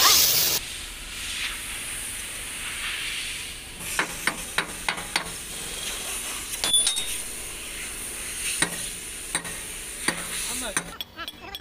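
Scattered metallic clicks and clinks of tools and bolts being handled at a boom truck's hydraulic cylinder pin mount, over a steady hiss. One clink, a little past the middle, rings briefly.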